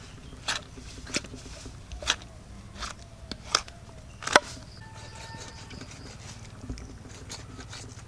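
A knife chopping a goat head: six sharp, separate chops over the first four seconds or so, then a pause.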